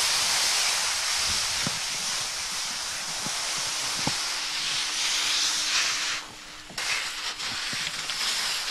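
Skis sliding over snow: a steady hiss that drops away briefly about six seconds in.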